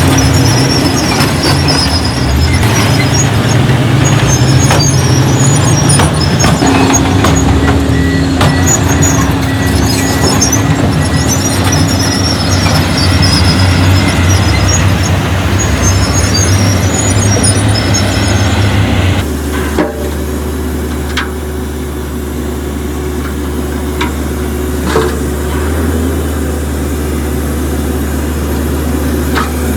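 Heavy diesel construction machinery, a bulldozer or dump truck, running hard with high squeaking over the engine. About two-thirds of the way through the sound cuts suddenly to a quieter, steady low engine idle with a few light knocks.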